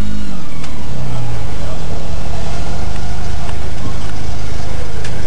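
Supercharged G60 engine of a lowered VW Golf mk2 running at idle, loud and close. Its note drops just after the start and then holds steady, with a few sharp ticks over it.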